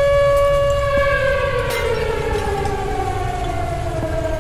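Tornado warning siren: one steady tone that, about a second in, begins to wind down, its pitch falling slowly, over a low rumble.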